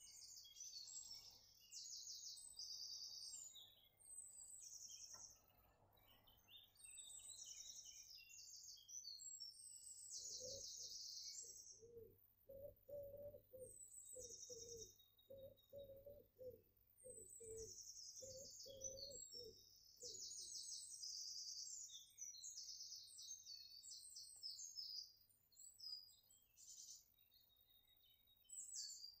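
Faint garden birdsong at dawn: songbirds chirping and trilling in high bursts, with a lower cooing call repeated about a dozen times in the middle.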